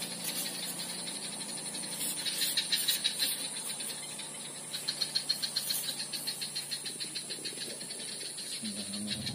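Insects trilling in the swamp grass: a fast rattling trill that swells and fades in bouts, over a steady high-pitched whine. A low engine hum comes in near the end.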